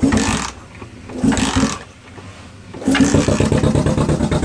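Honda CB250 motorcycle engine being cranked in two short bursts that don't catch, then firing about three seconds in and running at a steady idle.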